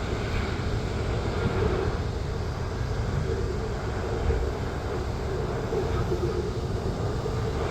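Steady jet airliner engine noise with a hum in the middle and heavy low rumble, typical of wind on the microphone.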